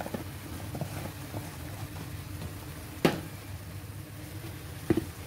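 Tomato sauce simmering in a frying pan, a steady low bubbling, with two sharp clicks, one about three seconds in and one near the end.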